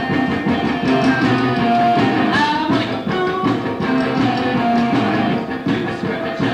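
No wave rock band playing a dense, noisy track: electric guitar and drums, with pitched lines sliding up and down over the beat.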